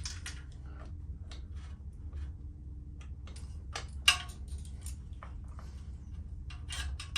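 Scattered small metallic clicks and taps of hand tools and fasteners on motorcycle exhaust hardware as a nut is fitted, with one sharp, louder clack about four seconds in, over a steady low hum.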